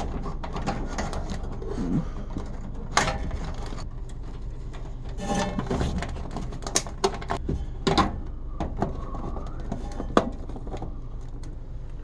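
Hands fitting the wires and spade connectors of a new freezer defrost termination switch: scattered clicks and rustling of wires, over a steady low hum.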